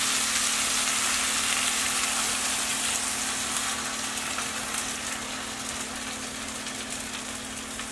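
Beaten eggs sizzling in hot oil in a skillet with tortilla chips, onion and serrano pepper, a steady hiss that slowly fades, with a steady low hum underneath.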